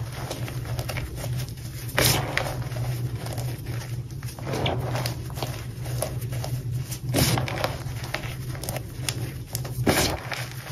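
Hands squeezing and pressing cornstarch mixed with crushed gym chalk in a bowl, giving soft powdery squeaks and crunches. Stronger squeezes stand out about two, seven and ten seconds in, over a steady low hum.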